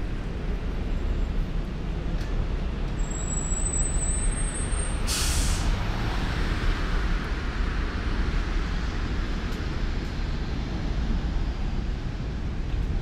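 Road traffic rumbling steadily, with a sudden sharp hiss of a bus's air brakes about five seconds in that fades away over a second or two.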